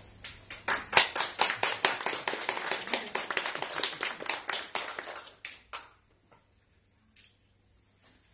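Audience applauding: quick, dense, irregular clapping that lasts about five seconds, thins out and stops about six seconds in.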